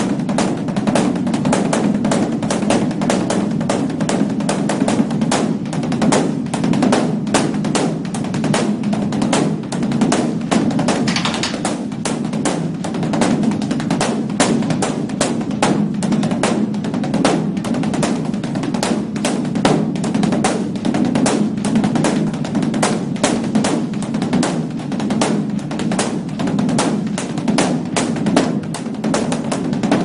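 Beopgo, the large barrel-shaped Buddhist dharma drum of a Korean temple, beaten by a monk in a fast, unbroken stream of strokes over a continuous deep boom from the drumhead. This is the dawn drumming that opens the temple's morning ceremony.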